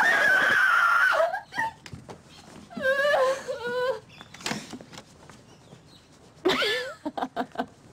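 A girl's loud, drawn-out scream of dismay lasting about a second, followed by shorter whining, distressed voice sounds about three seconds in and again near the end.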